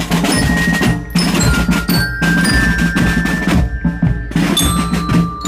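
Marching band playing: bell lyres (marching glockenspiels) ring out a tune in clear held notes over bass drums and a snare drum.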